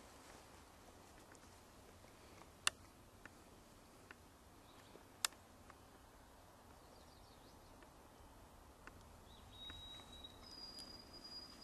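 Quiet woodland ambience with a faint hiss, broken twice by a sharp click a few seconds apart. Near the end a songbird whistles: a short note, then a higher note held for a couple of seconds.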